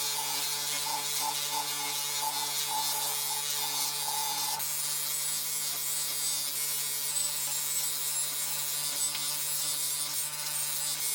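A small electric power tool motor running steadily at constant speed, with a steady hum and a hiss on top.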